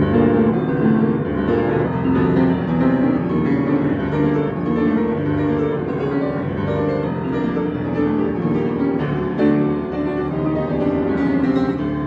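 Solo piano playing a fast, agitated piece in G minor: low rolling bass arpeggios under repeated chords in the upper register.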